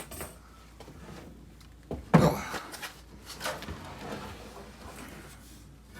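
A heavy thump about two seconds in, followed by a few lighter knocks and clunks: the bulky, heavy metal window air conditioner being handled and moved.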